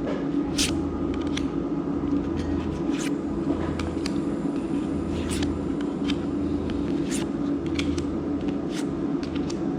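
Magic: The Gathering trading cards being handled and laid down, making short sharp clicks and snaps at irregular intervals, over a steady low hum.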